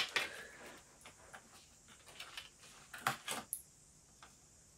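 Sparse small clicks and taps of hands handling an SSD and its screws in a laptop's open drive bay: a sharp click at the start, a few faint ticks, then two clicks close together about three seconds in.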